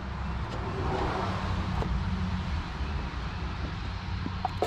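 Low, steady rumble of a vehicle engine running, swelling slightly about a second in, with a few faint clicks near the end.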